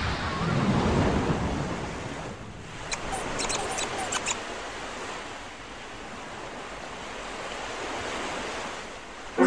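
Ocean surf washing on a shore, an even rush of waves that swells near the start and then eases off, with a few short high ticks about three to four seconds in.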